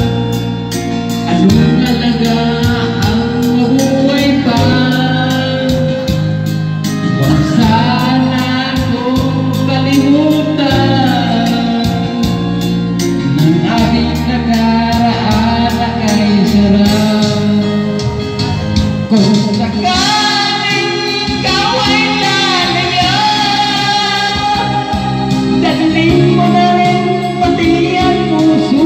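Karaoke: a person singing into a microphone over a backing track, the voice and music both played loud through a karaoke machine's speaker. The sung notes glide and are held over a steady accompaniment.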